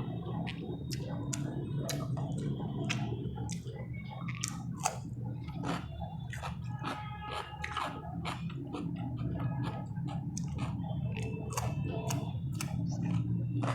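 Close-up eating sounds: a person chewing and biting a meal of fried rice, chicken and cucumber, with many sharp crunchy clicks throughout over a low steady hum.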